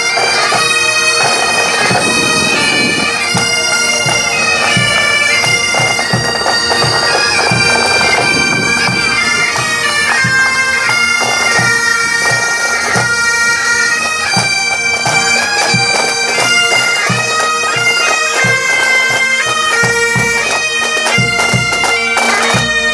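Pipe band playing on the march: bagpipes sounding a tune that steps from note to note over their steady drone, with drum beats under it.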